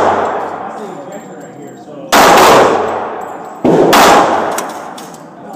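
Two pistol shots about a second and a half apart, each followed by a long fading echo. The tail of an earlier shot dies away at the start.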